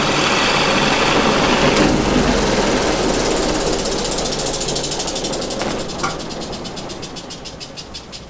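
A Delta drum sander's motor spinning a large cloth buffing wheel on its drum shaft: a loud mechanical rush just after start-up, which drops about two seconds in. The machine then coasts down, fading, with a rapid, even ticking that slows as the wheel winds down.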